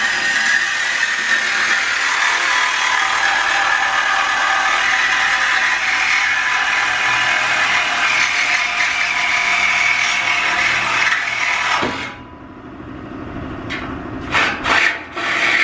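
Cordless reciprocating saw cutting through a steel exhaust pipe to remove a resonator, a loud continuous rasp with a ringing metallic tone. The cut stops about twelve seconds in, followed by a few short bursts of the saw near the end.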